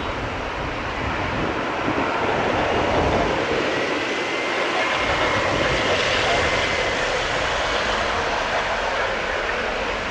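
Boeing 777 freighter's GE90 turbofan engines running as the jet rolls along the runway: a steady rushing roar with a faint high whine, a little louder from about two seconds in.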